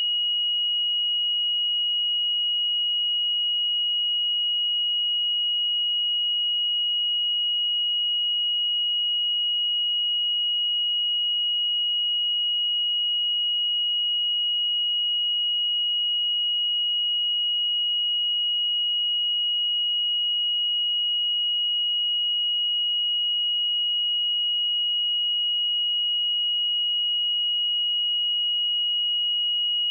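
A steady, unbroken pure sine-wave test tone at 2897 Hz, a single high-pitched note held at constant loudness.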